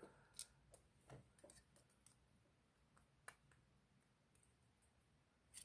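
Faint small metallic clicks of tweezers handling lock pins taken out of the padlock's cylinder: a quick cluster of ticks in the first couple of seconds, a single click a little after the middle, and a sharper one near the end.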